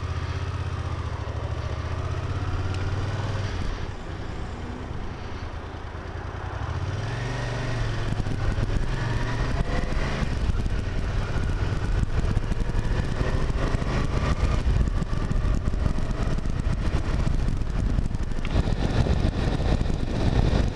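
Motorcycle engine heard from the bike itself, running steadily at first. It then pulls away, its pitch climbing again and again as it changes up through the gears, and wind rush builds near the end.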